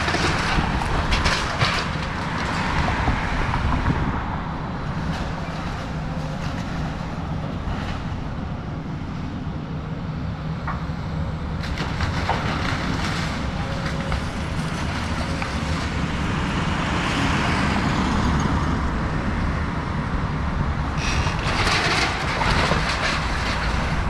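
Excavator's diesel engine running steadily, with intermittent swells of rough, scraping noise.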